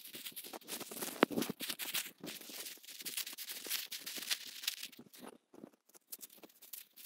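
Crinkly rustling and crackling of Dyneema composite (DCF) tent fabric as it is gathered up, rolled and stuffed into its sack, with a sharp click about a second in.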